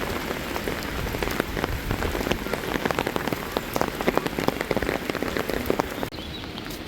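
Steady rain, with many sharp, close drops hitting a surface over a constant hiss. About six seconds in it cuts abruptly to a quieter, smoother rain sound without the close drop hits.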